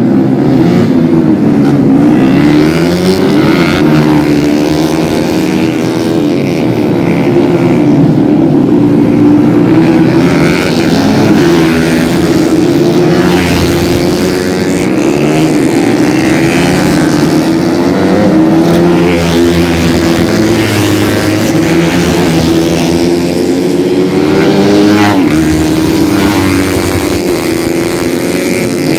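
Several small-displacement underbone racing motorcycles' engines revving hard as they race around the circuit, many engine notes overlapping and rising and falling in pitch as the bikes accelerate, shift and pass.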